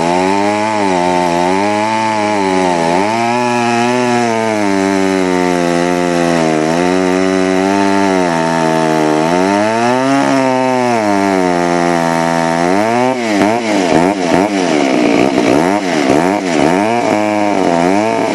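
Wright chainsaw cutting through a large log under heavy load. The engine's pitch sags and recovers in slow waves as the bar bites. From about two-thirds through, the pitch swings up and down rapidly and unevenly.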